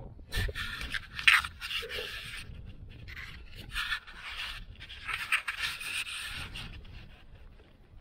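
Wind-driven chop splashing and slapping against a kayak's hull in irregular bursts, with short sharp knocks among them.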